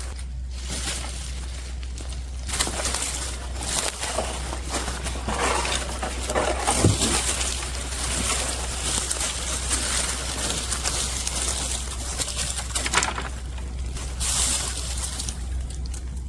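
Brush pile fire catching after being lit with diesel: crackling and snapping, building up a few seconds in and easing off near the end.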